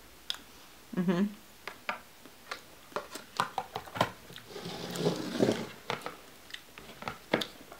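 Light clicks and taps of a metal spoon and the lids of paper ice cream pints being handled, put on and taken off, with a scraping rustle around the middle. A brief hum of voice comes about a second in.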